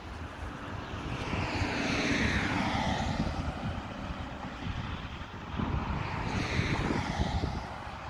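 Road traffic: two vehicles drive past one after the other, each sound swelling and then fading as it goes by.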